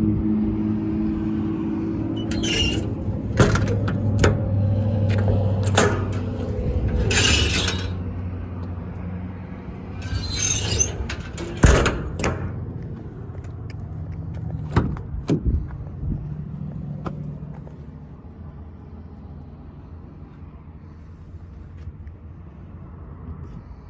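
Low engine rumble with a string of sharp metal knocks and clanks over it. The rumble fades away about two-thirds of the way through, leaving a quieter background.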